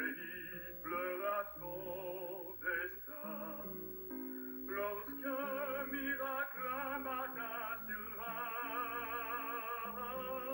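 A male singer singing a ballad in French with a wide vibrato over orchestral accompaniment: the opening song of a Disney animated film in its French dub, played from the VHS soundtrack.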